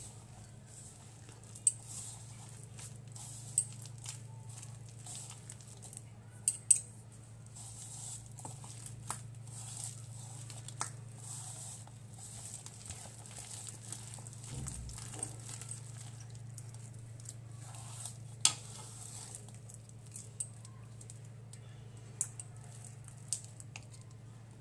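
A hand mixing and kneading a soft dough of mashed ripe banana and flour in a bowl: soft squishing and patting, with a few short sharp clicks. A steady low hum runs underneath.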